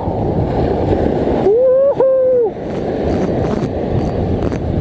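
Strong wind buffeting the microphone over breaking surf, while a spinning reel is cranked in with a faint, fast ticking in the second half. A hooting tone bends up and then down once, about a second and a half in, lasting about a second.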